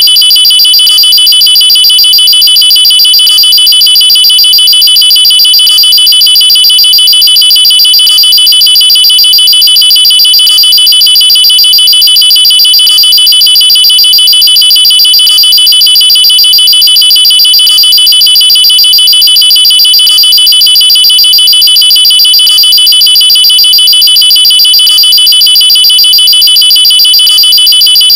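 Loud, high-pitched electronic alarm tone used as a nuclear-attack alarm, pulsing rapidly at a steady pitch without rising or falling. It repeats unbroken in a cycle of about two and a half seconds.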